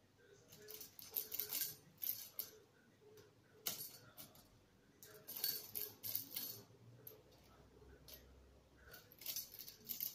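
A budgerigar pecking and tugging with its beak at a plastic mesh bag and the packaging inside it, giving several bursts of quick clicks and crinkling with quiet pauses between.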